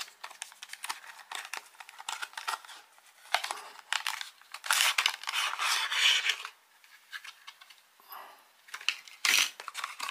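A small cardboard box opened by hand and a clear plastic tray slid out of it: rustling, scraping and crinkling with light clicks, busiest about five to six and a half seconds in and again near the end.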